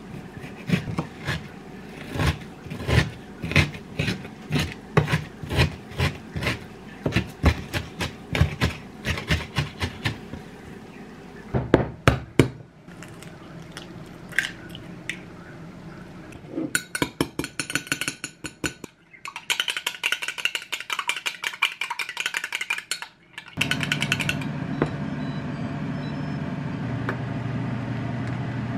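Chef's knife chopping kimchi on a cutting board, about two cuts a second for the first ten seconds. Then an egg is cracked into a glass measuring jug, followed by several seconds of rapid clinking and scraping, and a steady low hum that starts near the end.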